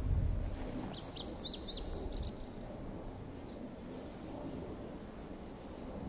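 Male lazuli bunting singing one quick, jumbled phrase of sharp high notes about a second in, lasting just over a second, with a lone high note a little later. A low rumble sits underneath in the first couple of seconds.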